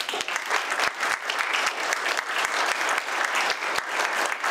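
A roomful of people applauding, a crowd of audience and panelists clapping together, loud and steady.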